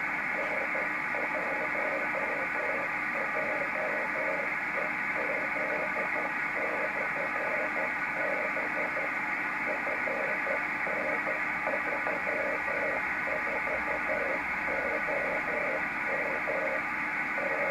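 N1JEZ 10 GHz beacon received by rain scatter off a storm cell, demodulated in upper sideband: a mid-pitched tone keyed on and off in Morse code over steady receiver hiss.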